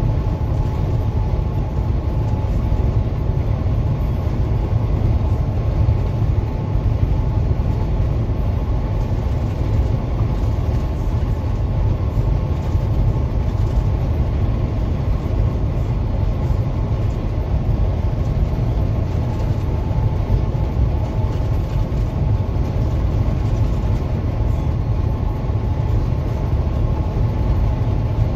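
Steady low road and engine rumble of a vehicle cruising along a highway, heard from inside the cab, with a faint steady hum over it.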